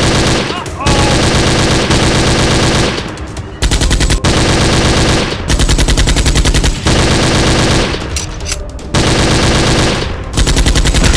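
Rapid automatic gunfire from a machine-gun sound effect, in a string of long volleys with brief gaps between them.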